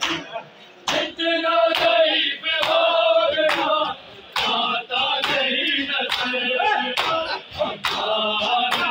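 Crowd of men chanting a noha, a mourning lament, in chorus over the rhythmic slaps of hands beating bare chests (matam), about one slap a second.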